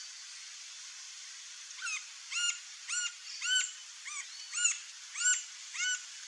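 Green-barred woodpecker calling: a series of about eight loud, arched, ringing notes at roughly two per second, starting about two seconds in, over a faint steady hiss.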